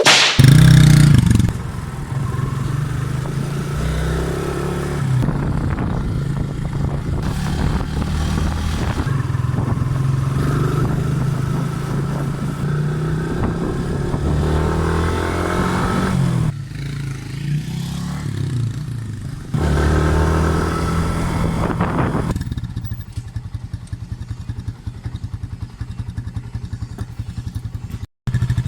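Yamaha Sniper 150's single-cylinder four-stroke engine breathing through a shortened, gutted ("kalkal") stock muffler, running with the revs rising and falling, then settling about 22 seconds in to a steady idle with quick, even exhaust pulses.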